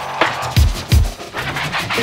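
Electronic background music with a beat of deep kick drums that drop in pitch and sharp, bright percussion hits.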